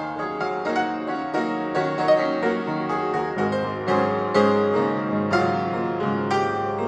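Background piano music, single notes and chords struck in a gentle melodic line.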